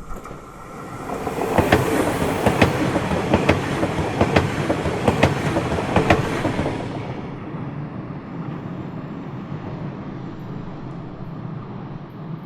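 Train passing close by: a rising rumble, then wheels clacking over rail joints about once a second at its loudest. After about seven seconds the clacks stop and it eases to a lower, steady rumble.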